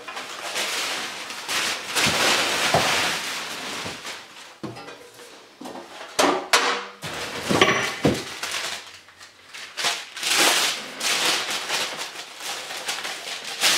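Packing paper rustling and crinkling as it is pulled and unwrapped from parts in a cardboard box, with a few sharp clunks of sheet-metal parts being handled.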